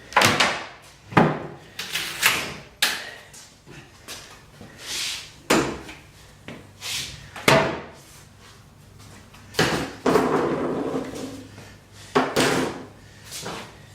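A series of sharp wooden knocks and clunks, about a dozen, from a newly hung cabinet door and its mounting jig being handled, with a longer rubbing or scraping stretch about ten seconds in.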